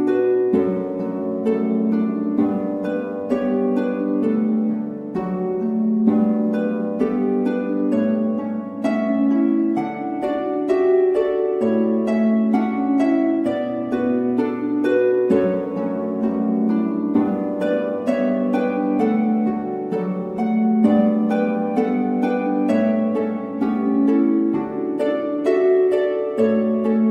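Background music: a steady run of quick plucked-string notes over held low notes.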